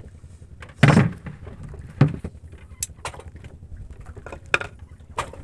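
Knocks and bumps on a small boat's hull as someone sits and handles gear, a heavy thump about a second in, a second knock a second later, then a few lighter clicks.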